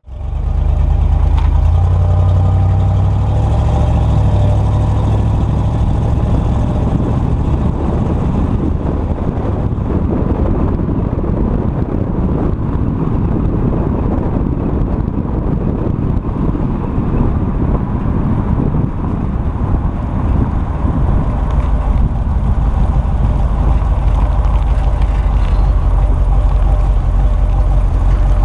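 1973 Corvette Stingray's 350 cubic inch V8 running as the car drives, heard from a camera on the car's body with wind and road noise. A strong low engine note leads at first, rough wind and road noise builds through the middle, and the engine note steadies near the end.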